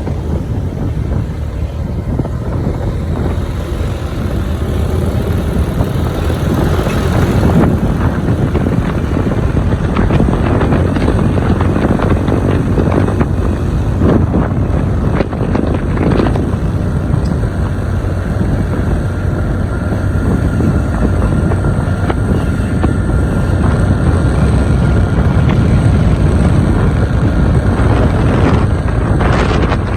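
Wind rushing over the microphone on a moving Honda Click 125i scooter, over the steady running of its single-cylinder engine and road noise, without a break.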